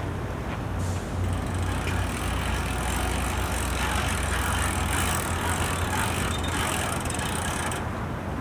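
A low, steady engine rumble, joined about a second in by a rushing hiss that lasts about seven seconds and cuts off abruptly near the end.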